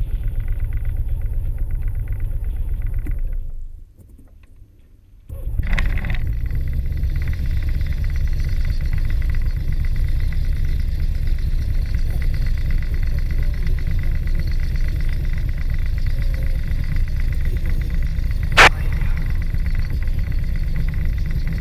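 Motor glider's piston engine heard from inside the cockpit: it runs for about four seconds, cuts out, then starts again about a second and a half later and settles into a steady idle. A single sharp click comes near the end.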